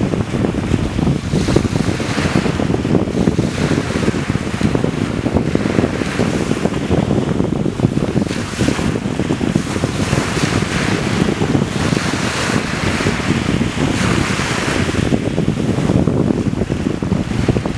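Small waves breaking and washing up a sandy beach, their hiss swelling and fading every few seconds, under wind buffeting the microphone with a steady low rumble.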